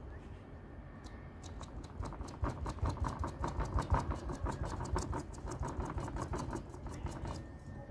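Sponge dabbing rapidly against the painting board, a quick run of soft taps several times a second. It starts about two seconds in and stops near the end, applying spray-paint texture for foliage.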